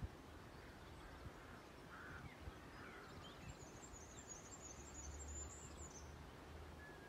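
Quiet outdoor ambience with distant birds singing: scattered faint chirps and a high twittering run from about halfway through for a couple of seconds, over a faint low rumble.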